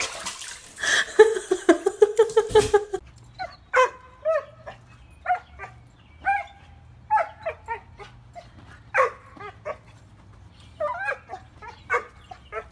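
Water running into a bathtub for the first three seconds. Then a small dog yips and barks in short, separate bursts, one every half second to a second.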